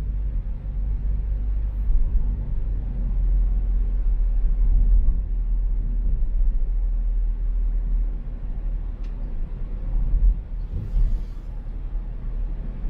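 Car driving through city traffic: a steady low rumble of engine and road noise, with a faint short hiss near the end.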